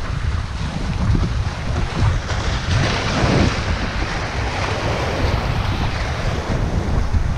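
Small waves washing in over boulders and hissing as the foam drains back between the rocks, with wind buffeting the microphone. One wash swells louder about three seconds in.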